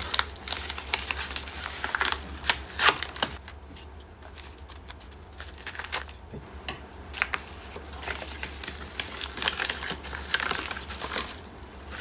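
A paper envelope being opened and handled: crinkling paper with many sharp crackles and clicks, quieter for a few seconds in the middle.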